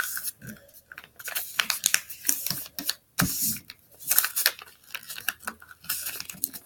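A sheet of printer paper rustling and crinkling in the hands as it is folded and its creases pressed flat, with many short, irregular scrapes.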